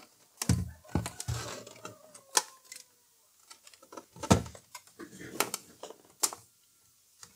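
Handling clatter of a Philips FP146 turntable's casing as it is turned over by hand on a workbench: a handful of sharp clicks and knocks at irregular intervals, with quiet gaps between.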